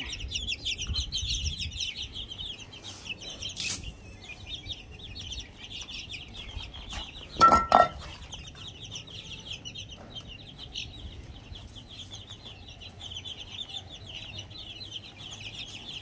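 A flock of barred Plymouth Rock chicks peeping constantly in quick, high calls. About halfway through there is a brief loud clank.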